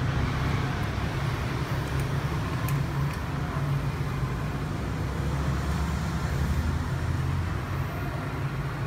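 Steady low motor rumble of vehicle traffic, with a few faint clicks about two to three seconds in.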